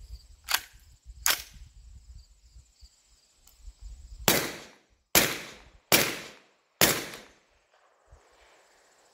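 Four suppressed shots from a Q Sugar Weasel 300 Blackout AR pistol firing 220-grain subsonic handloads through a SilencerCo Omega 9K suppressor, spaced a little under a second apart. Each is a sharp report with a short decaying tail, and the action cycles on every round. Two faint clicks come about half a second and a second in.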